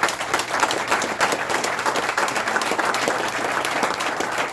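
A small group of people applauding, a dense run of hand claps.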